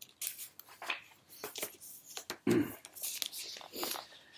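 Paper rustling and crinkling, a run of short scrapes and flicks, as the pages of a picture book are handled and turned.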